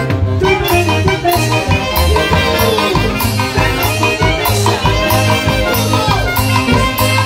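Live Andean huayno orchestra playing: saxophones carrying the melody over a drum kit with a steady bass-drum beat and cymbal crashes.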